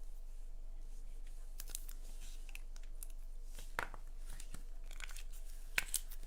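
Paper and cardstock pieces being handled on a craft desk: a few light rustles and small clicks at scattered moments, the clearest near the middle and near the end.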